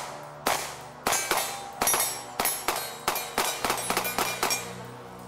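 Two 9mm SIG Sauer pistols, a P228 and a P226, firing a rapid string of shots, with steel targets clanging and ringing as they are hit. The firing stops about four and a half seconds in.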